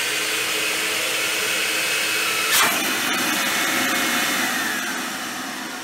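Two-stage blower running with a steady rush of air, blowing almost 5 psi of boost. A sharp click about two and a half seconds in; after it a high whine slowly drops in pitch and the sound gets somewhat quieter.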